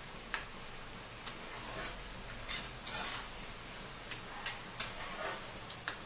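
Slotted metal spatula scraping and knocking against a black kadai as capsicum and onions are stir-fried, in irregular strokes, the loudest about three and five seconds in, over a faint sizzle.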